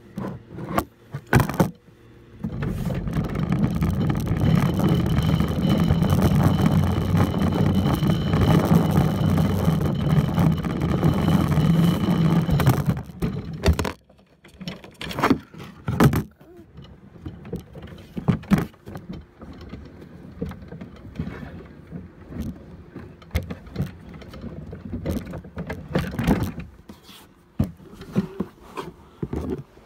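Backyard roller coaster cart rolling down its track: a loud steady rumble with a thin whine above it, running about ten seconds and stopping abruptly. Afterwards scattered knocks and clatter.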